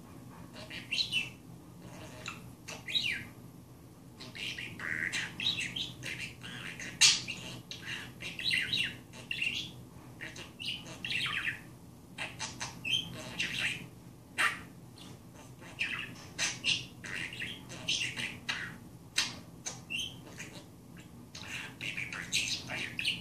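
Budgerigar chattering: a steady stream of short chirps, warbles and clicks with hardly a pause, one sharp click standing out about seven seconds in.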